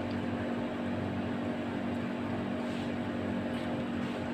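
Steady low mechanical hum of running room equipment, holding a few fixed tones without change.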